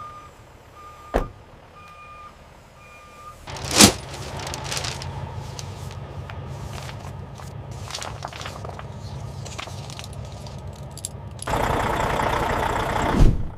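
Truck backup alarm beeping four times about a second apart, a sharp knock, then a loud bang, after which a truck's diesel engine runs steadily. Near the end comes a loud hiss of air lasting under two seconds.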